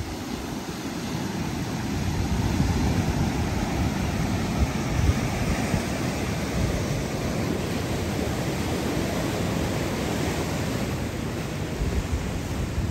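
Heavy ocean surf breaking over rocks and churning white water, a steady rushing noise that builds over the first two seconds and then holds.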